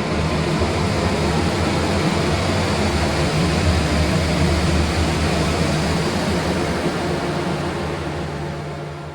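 Saturn car running, a steady low engine rumble with a hiss of noise above it, fading away over the last second or so.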